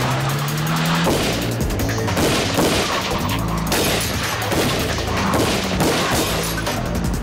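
Gunfire, a volley of shots fired at a fleeing car, over tense orchestral action-film music.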